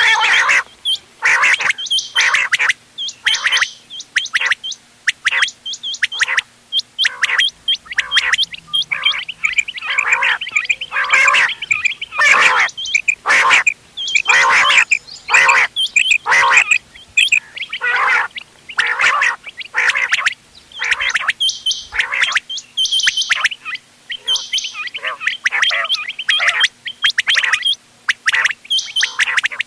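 Common quail calls, several birds calling over one another in quick, repeated short notes. This is a mixed quail-call recording of the kind played to lure quail when hunting. A faint steady hum runs underneath.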